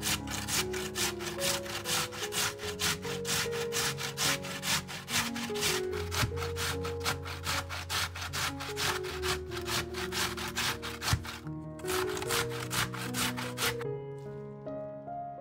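Raw vegetable grated on a hand grater in quick, even rasping strokes, about four a second, pausing briefly and then stopping near the end, over soft background music.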